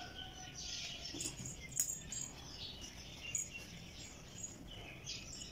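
Faint outdoor ambience with scattered short, high-pitched chirps, and a single light click a little under two seconds in.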